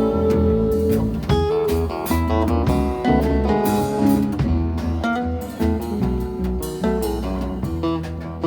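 Live band playing an instrumental passage, guitar to the fore over bass and a drum kit.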